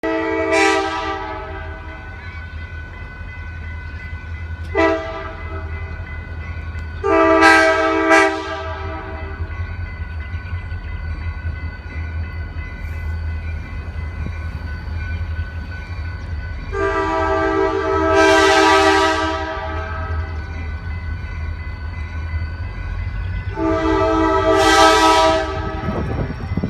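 Locomotive air horn sounding for a grade crossing: five blasts of a multi-tone chord, a very short one about five seconds in and the rest long, the last two about 17 and 24 seconds in. A steady low rumble runs underneath and between the blasts.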